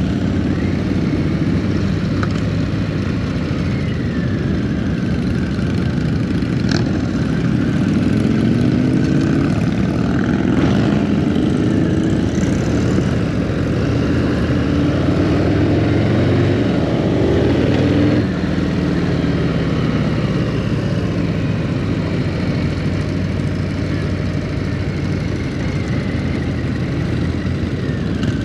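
Motorcycle engine running under way among a pack of motorcycles. The engine note climbs from about eight seconds in and drops off sharply at about eighteen seconds, as when the throttle is rolled off.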